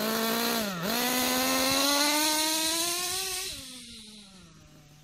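Kyosho KE25 two-stroke nitro engine in an RC truggy accelerating at half throttle during break-in. Its pitch dips briefly, then climbs steadily for about three seconds as the truggy pulls away, then drops and fades as it lets off and moves off.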